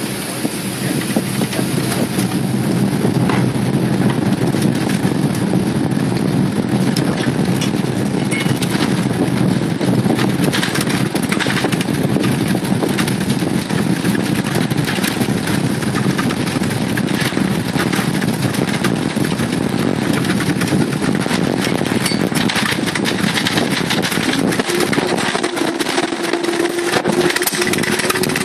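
Airbus A380 takeoff roll heard from inside the passenger cabin: the engines at takeoff thrust make a loud, steady rush and rumble, with cabin fittings rattling and knocking as the aircraft speeds down the runway. Near the end the low rumble thins out and a steady hum comes in as the takeoff is rejected and the aircraft begins braking.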